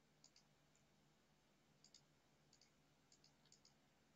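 Faint computer mouse clicks, about eight spread irregularly, some in quick pairs, over near silence.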